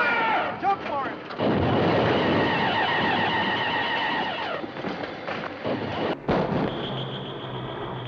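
Martian heat-ray sound effect from the original mono film soundtrack: a warbling, pulsing electronic tone in several stacked pitches with swooping glides, and a burst of blast noise about a second and a half in as the ray strikes. It breaks off sharply about six seconds in, and a steady high electronic tone over a low hum follows.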